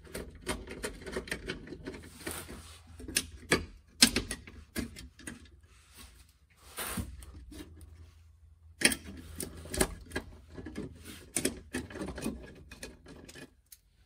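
Irregular metallic clicks and knocks, some in quick runs, as a metal rock guard and its bolts are fitted by hand around a pipe fuel tank.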